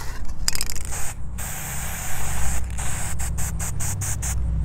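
Aerosol can of spray paint hissing as it sprays paint onto a styrofoam block: two longer sprays with brief breaks, then a run of short quick bursts that stop shortly before the end.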